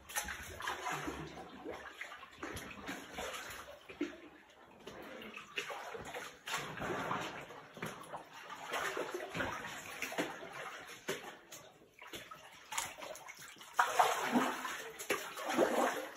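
Water sloshing and splashing around an inflatable ring in irregular surges, louder near the end.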